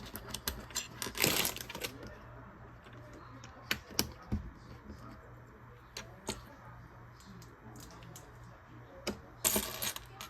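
Small plastic Lego pieces clicking and clattering as they are handled: scattered sharp clicks, with two longer spells of rattling, one about a second in and one near the end.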